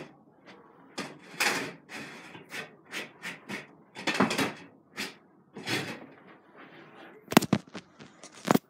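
Handling noise at a glass terrarium: a run of short rustles and clatters as hands work in and around the tank and its lid. Two sharp knocks come near the end, the second the loudest, as the phone is grabbed and picked up.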